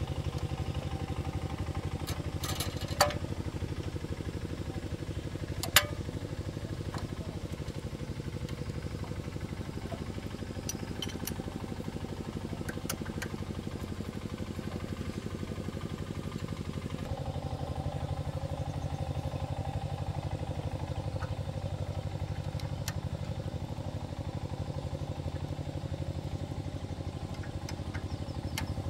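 Two-wheel walking tractor's single-cylinder diesel engine running steadily, its note changing a little past halfway. Two sharp knocks stand out early, about three seconds apart.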